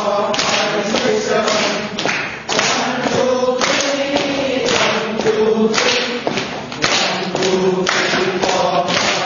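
Voices chanting together in a sing-song unison, over sharp hand claps at a steady beat of about two or three a second, as in a rhythmic clapping exercise.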